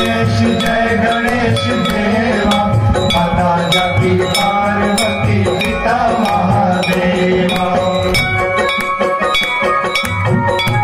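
Devotional aarti music with a steady beat of sharp percussion strikes, about three a second, over sustained melodic tones.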